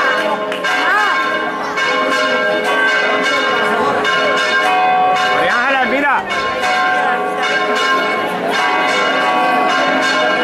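Church bells pealing, many quick strokes blending into a continuous ringing, with crowd voices shouting over them briefly around the middle.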